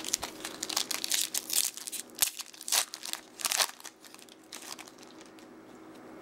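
Baseball card pack wrapper crinkling and tearing as it is opened, a rapid run of crackles for about four seconds that then dies down to a few faint rustles.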